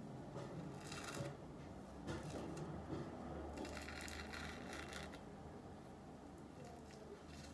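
Dried charcoal peel-off mask being pulled off the skin: faint crackling and tearing of the stiff film as it comes away, in several short stretches, the longest about midway.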